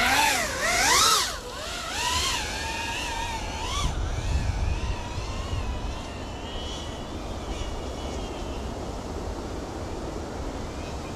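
Small ducted FPV quadcopter (cinewhoop) taking off and flying: its brushless motors and propellers whine, the pitch swooping up and down with the throttle. It is loudest in the first two seconds, then fainter and steadier as the drone moves away, with a brief low rumble about four seconds in.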